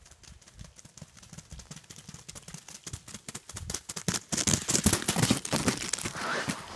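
A dog's paws crunching quickly on ice-crusted snow as it runs. The crunching grows much louder about four seconds in as the dog comes close.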